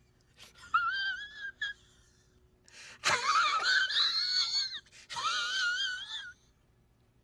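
High-pitched, wavering wails in several short and longer bouts, the loudest about three seconds in, like a small child crying.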